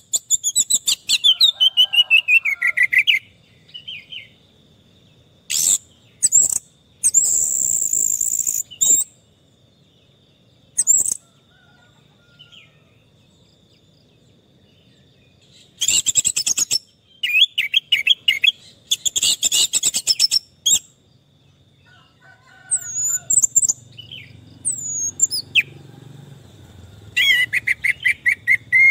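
Orange-headed thrush singing in bursts of fast, high notes, several phrases sweeping downward, with pauses of a few seconds between phrases. A faint steady high tone runs underneath.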